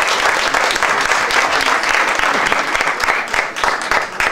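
Audience applauding, a dense spread of handclaps that begins to thin out near the end.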